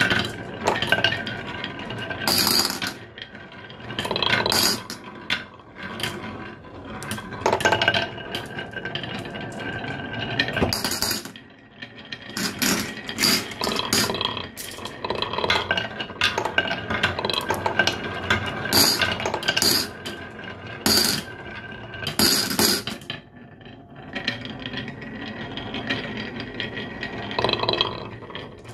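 Glass marbles rolling down a carved zigzag wooden slope, rumbling along the grooves and clinking and clicking as they knock against the wooden walls and each other, many sharp clicks throughout.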